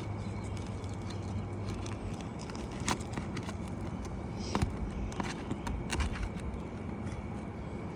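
A few sharp clicks and scrapes from work on three-tab asphalt shingles, over a steady low outdoor rumble.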